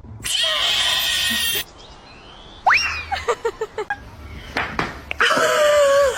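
Cat vocalising: a hiss-like burst at the start, then a short rising cry and a few brief calls, and a drawn-out wavering yowl near the end.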